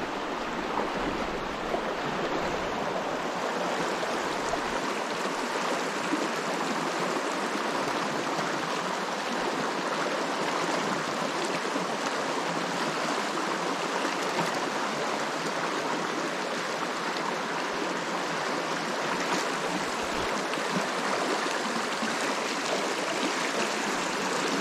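River water rushing steadily over its bed, an even, unbroken sound.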